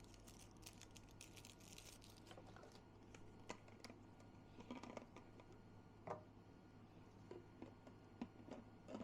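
Faint, scattered clicks and light taps of small plastic parts being handled, over a steady low hum.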